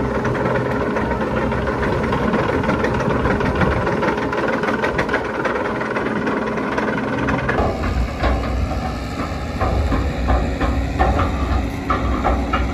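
Tractor engine running while it works a power harrow, with a dense clatter of sharp clicks over the engine. About eight seconds in the sound switches to a deeper, heavier engine rumble: a wheel loader working.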